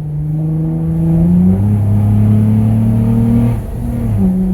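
Car engine heard from inside the cabin, accelerating hard with a pedal box throttle controller in Sport Plus mode. Its pitch drops right at the start, climbs, holds steady, then drops and climbs again near the end, as the gears change.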